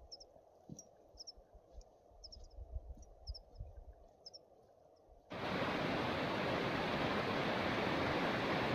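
Quiet open-air sound with faint high chirps and a few soft low thumps. About five seconds in, it switches abruptly to the steady loud rush of a rocky mountain stream running white over boulders.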